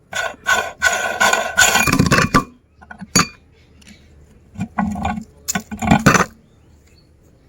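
Noodles being crushed in a meat grinder, crackling and clinking in irregular bursts, with a single sharp click about three seconds in and a pause before a second run of crunching.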